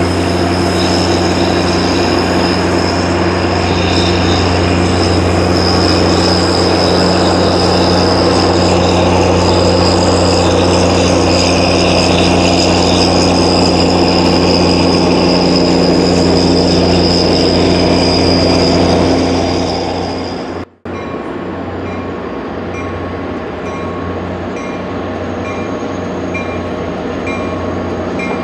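Caltrain commuter train passing close by: bilevel passenger cars rolling with a steady high wheel squeal, then the diesel locomotive at the rear with its low engine hum. About two-thirds of the way in the sound cuts off abruptly, leaving a quieter steady rumble with faint regular ticks.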